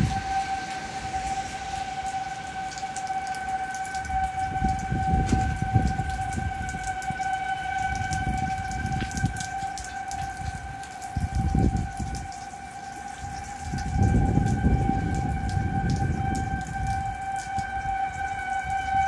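Outdoor tornado warning siren sounding, holding one steady pitch throughout. Low rumbling gusts of wind hit the microphone several times, strongest about fourteen to seventeen seconds in.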